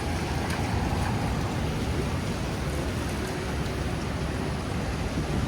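Steady rain on a city street, with a low rumble of traffic underneath.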